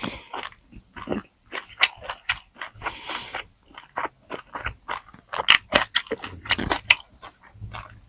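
Close-up eating sounds: a person biting into and chewing crispy fried pork knuckle skin, with many sharp, irregular crunches and crackles.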